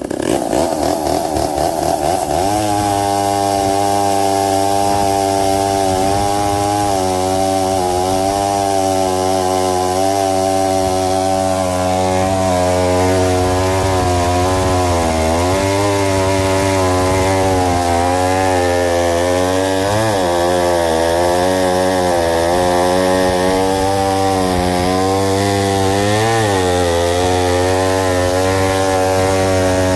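Two-stroke chainsaw running at high revs and cutting into a chunk of dense elm. The engine revs up about two seconds in, then holds steady, its pitch sagging and recovering a few times under the load of the cut.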